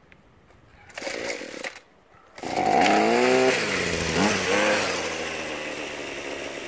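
Gas string trimmer engine starting up: after a short noise about a second in, it catches about two and a half seconds in, revs up with a rising pitch, dips and revs once more, then settles into steady running.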